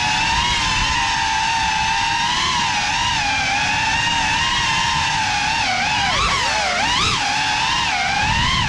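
Small ducted FPV drone's motors and propellers whining at a high pitch. The pitch wavers gently, then swoops up and down several times in the second half as the throttle changes.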